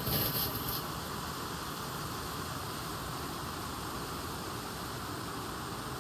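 Waterfall rushing: a steady, even wash of falling water, with a short louder rustle in the first second.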